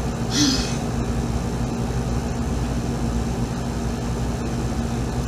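Steady low hum with a faint constant tone, and one short voice-like sound about half a second in.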